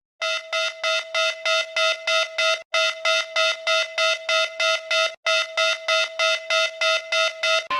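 Electronic emergency alert alarm: one steady buzzer-like tone pulsing about three times a second, in three runs broken by two brief gaps.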